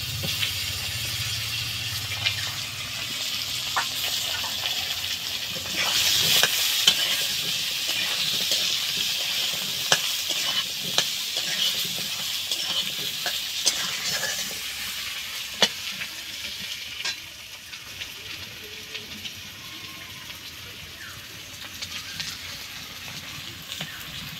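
Potato wedges sizzling as they fry in hot oil in a metal kadai (wok), with a metal spatula scraping and tapping the pan as they are stirred. The sizzle is loudest from about six seconds in and grows quieter in the last third.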